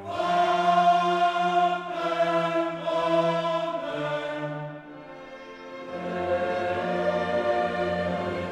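Background music: a choir singing held chords over an orchestra, the chords changing about once a second, with a brief softer passage about halfway through.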